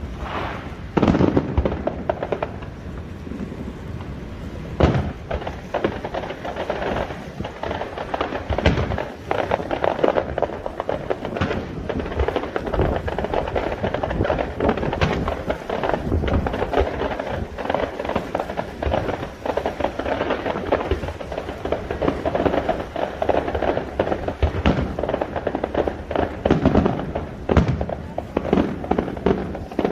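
Fireworks display: a continuous run of irregular bangs and crackles, with several louder booms standing out.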